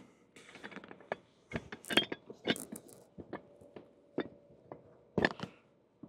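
Aluminum hose coupler being worked into the end of a roughly 6-inch layflat manure hose by hand: scattered knocks, clicks and rubbing. The loudest knocks come about two seconds in and again just after five seconds.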